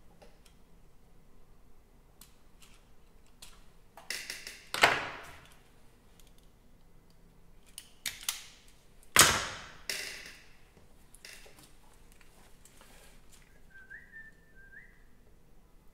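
Wire cutters snipping the thin balance-lead wires of a BMS harness: about six sharp snaps, in rough pairs, the loudest about five and nine seconds in. Two faint short chirps follow near the end.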